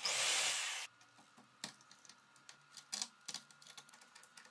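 Electric drill running loud for under a second as it drills the brushcutter's plastic handle, then stopping abruptly. Irregular light clicks and metal taps follow as a small spanner tightens the nut on the handle's throttle lever.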